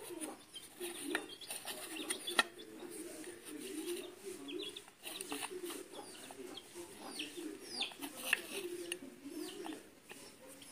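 Chickens clucking in a low, wavering murmur, with short higher chirps from birds over it. A single sharp click about two and a half seconds in.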